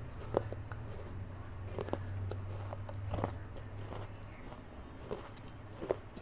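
Close-miked chewing of crunchy pieces of baked clay pot: irregular sharp crackles and crunches. A low steady hum runs underneath and is strongest for the first four seconds.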